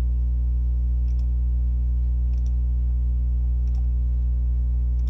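Steady low electrical mains hum on the recording, with a few faint computer-mouse clicks as edges are selected one by one.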